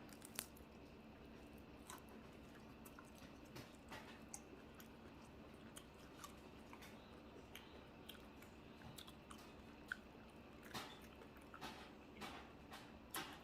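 Faint chewing and biting on a crisp air-fried cheesesteak egg roll, soft clicks of eating throughout and a run of louder crunchy bites near the end.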